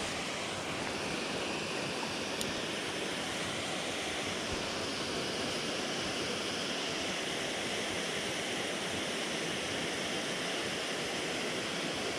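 Steady rush of water pouring down a large dam spillway.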